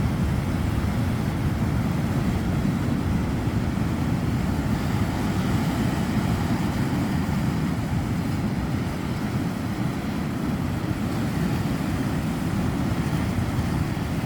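Steady low rumble of wind buffeting the microphone, mixed with the wash of surf at a beach.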